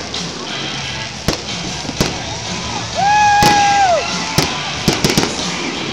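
Aerial fireworks bursting in a string of sharp bangs, some in quick succession near the end. About three seconds in, a long high tone rises, holds for about a second, then drops.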